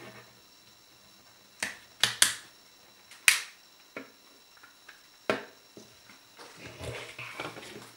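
Plastic snap-fit clips of a Garmin nüvi 250's case popping loose one after another as the two halves are pried apart with a plastic spudger: a series of sharp clicks, the loudest about 3 s in. Near the end come softer rustling and handling sounds of the plastic shell as the cover is lifted open.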